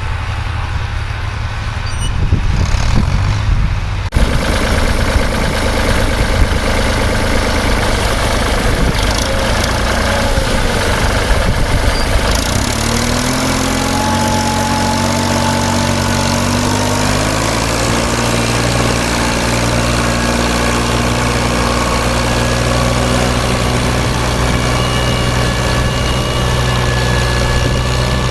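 Engine of a farm machine running. It grows suddenly louder about four seconds in, shifts pitch in a few steps, then settles into a steady idle.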